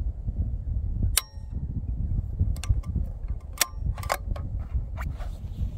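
Wind buffeting the microphone, with a sharp metallic clink that rings briefly about a second in, then a run of light metallic clicks from a bolt-action rifle being handled and reloaded between shots.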